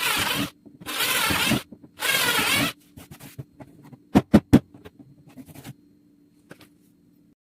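Three loud rasping scrapes, each half a second to a second long, followed about a second and a half later by three quick sharp knocks and a few lighter clicks, over a faint steady hum.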